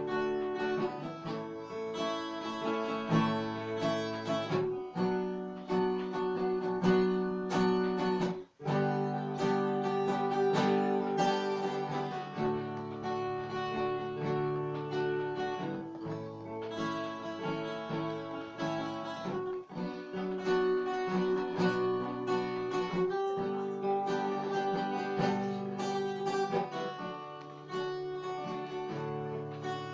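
Acoustic guitar strumming chords, changing chord every couple of seconds, with a momentary break in the sound about eight and a half seconds in.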